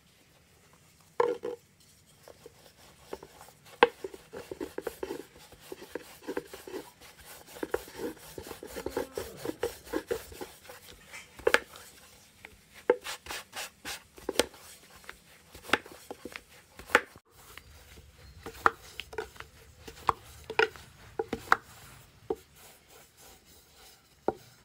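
A long, thin wooden rolling pin rolling dough out on a wooden board: irregular wooden clacks and knocks as the pin is rolled and shifted, with the rub of the pin over the dough. The first loud knock comes about a second in, and a quicker run of clacks follows a few seconds later.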